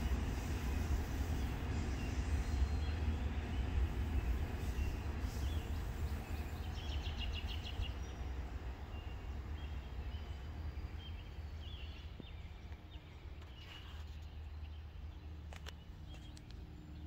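Low rumble of a departed auto-rack freight train fading into the distance, with birds chirping and a clear trill about seven seconds in.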